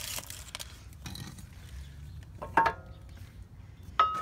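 Metal clinks of a disc brake caliper being worked down over new pads into its bracket: light rustling, then two sharp clinks, about two and a half seconds in and near the end, the second one ringing on.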